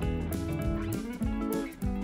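Background music track led by plucked guitar notes.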